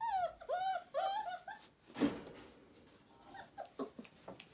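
Four-week-old puppy whimpering: a quick run of short, high, arching whines. About two seconds in comes a single brief scuffling noise, followed by faint scattered rustles.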